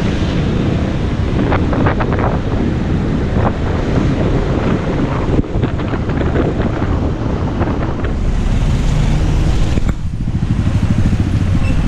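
Wind buffeting the microphone of a camera on a moving motorcycle, with the motorcycle engine and street traffic underneath. The sound changes briefly about ten seconds in.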